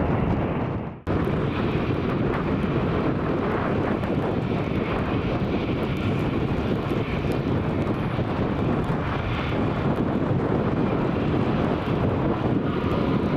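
Jet engines of an Airbus A320 airliner running, a steady, loud rushing noise, with wind buffeting the microphone. The sound dips out briefly about a second in and then carries on steadily.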